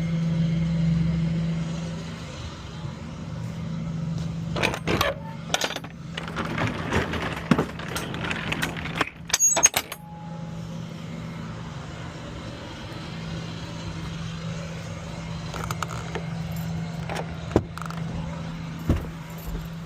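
Steady low engine hum inside a vehicle cabin, with rustling and sharp clicks of things being handled, loudest between about six and ten seconds in.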